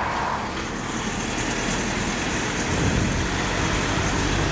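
Street traffic noise: a steady rush of passing vehicles, with a low engine rumble growing louder from about three seconds in as a vehicle comes close.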